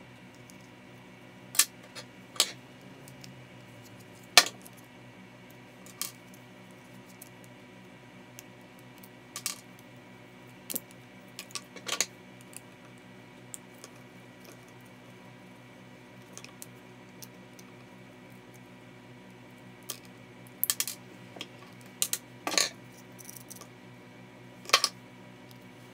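Parts of a disassembled Makita M693D 12V impact driver being handled: irregular sharp clicks and clinks of the metal motor, hammer-case ring and plastic switch and housing knocking together and being set down, with a quick cluster of them near the end.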